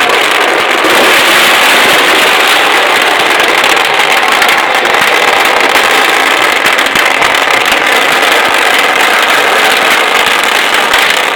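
A continuous barrage of firecrackers, a dense, loud, unbroken crackle that holds steady throughout.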